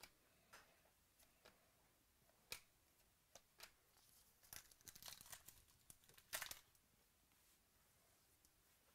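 Faint crinkling and tearing of a foil trading-card pack wrapper being handled and opened, with light clicks of cards being handled. The rustling comes in short spurts, busiest in the middle, with the loudest crinkle about six and a half seconds in.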